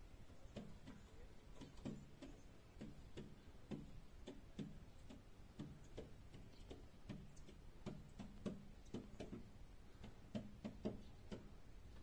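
Pigeon's feet tapping and clicking on a glass roof window as it walks across it, faint, irregular taps a few a second, some in quick pairs.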